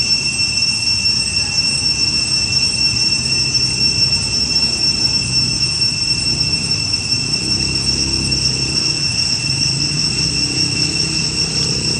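Steady, unbroken high-pitched insect drone over a low rumble.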